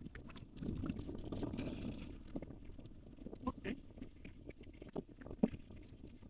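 Low rumble of wind on the microphone over small waves lapping in shallow sea water, with scattered irregular small clicks and splashes.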